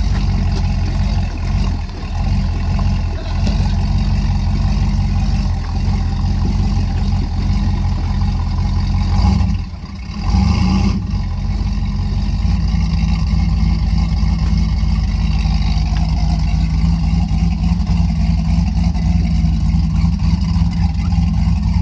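Nissan Xterra engine running as the SUV drives a trail. The sound is steady and low, with a brief dip about ten seconds in, then runs steady again.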